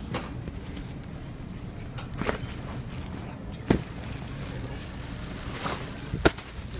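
Handheld phone-microphone handling noise: scattered rustles and sharp knocks over a steady background hum. The two loudest knocks come a little over three and a half seconds in and about six seconds in.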